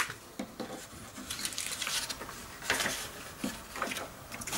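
Paper instruction booklet being opened and its pages turned and handled: irregular bursts of paper rustling and crinkling, with a sharp click at the very start.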